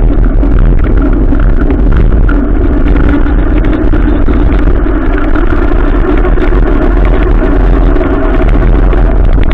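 Adventure motorcycle running steadily while being ridden, with heavy wind rumble on the microphone.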